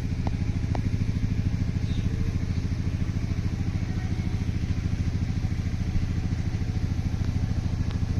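A small engine running steadily with a rapid, even throb.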